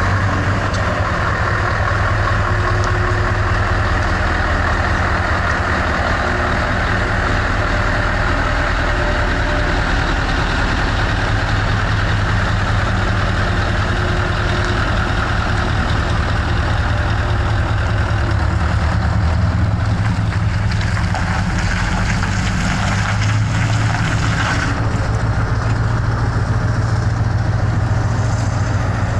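Truck engine idling steadily, with some extra higher-pitched noise between about twenty and twenty-five seconds in.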